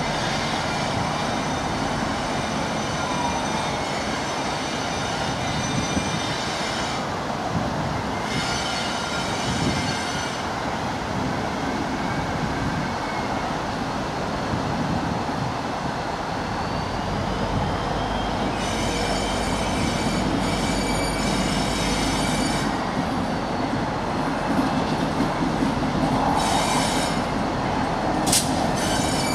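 Class 59 diesel locomotive 59204 hauling a loaded stone train slowly into a siding. Its wheels squeal high-pitched in spells that come and go, over the steady noise of the train. The low engine sound grows louder in the last few seconds as the locomotive draws near.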